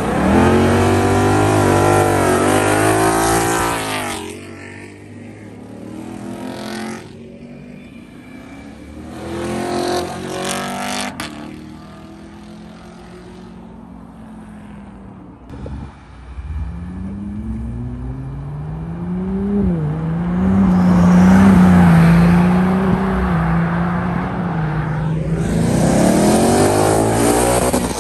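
Cars accelerating hard past one after another, engines revving loudly in separate passes: one at the very start, a short one about ten seconds in, a long one with rising gear pulls in the last third, and a Ford Mustang revving up as it passes near the end.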